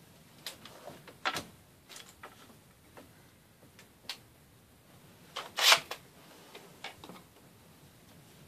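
Scattered clicks and light knocks of screws and a cordless drill being handled on a wooden tabletop, with one louder, brief clatter a little past halfway.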